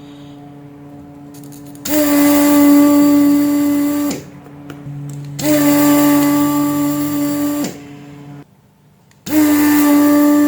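A small electric tool motor switched on in three bursts of about two seconds each. Each burst is a steady hum over a hiss that rises in pitch as it starts and cuts off sharply.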